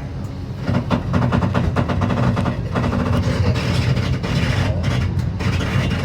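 Metra commuter train running at speed, heard from inside a passenger car: a steady low rumble with dense rattling and clacking from the wheels and car body, growing louder about a second in.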